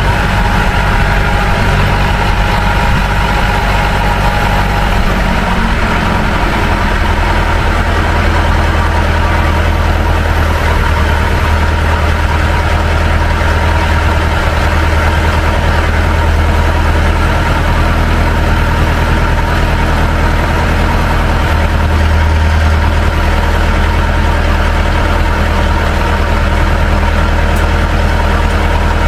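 Tractor engine running steadily at idle, its pitch shifting slightly about six seconds in.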